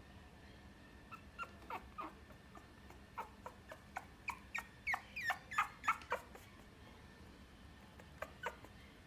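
Chihuahua–Papillon mix puppy whimpering: a run of short, high whines that each fall in pitch, starting about a second in and loudest around the middle, then two more near the end.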